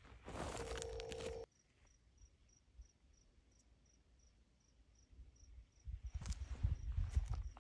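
A cricket chirping steadily, short high chirps about two or three a second. Crunching footsteps and handling noise in dry grass and gravel drown it out at the start and come back about six seconds in. The first stretch cuts off suddenly.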